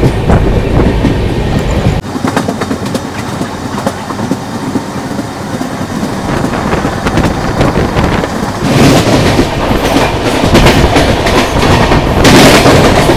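Double-decker chair-car train's wheels clattering over the many points and crossings of a junction as it gathers speed, with two louder rushes of noise about nine and twelve seconds in.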